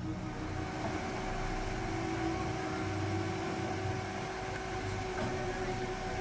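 Car engine running at idle, a steady hum with a low rumble.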